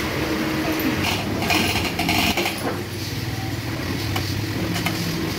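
An engine running steadily, with light metal clinks between about one and two and a half seconds in.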